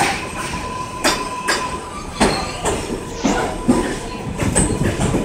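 New York City Subway 7 train of R188 cars pulling into an elevated station and rolling past: the wheels knock unevenly over rail joints, about two knocks a second, with a steady tone through the first half.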